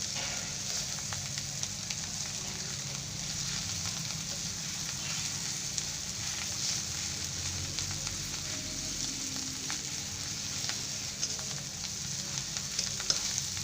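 Bitter gourd chutney sizzling steadily in a pan as it cooks down, with a few light clicks scattered through.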